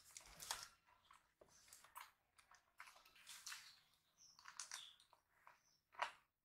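Quiet eating by hand: chewing, biting and wet mouth clicks, with fingers working rice on a steel plate and a bite into a green chilli. Irregular soft crackles and clicks, the sharpest about six seconds in.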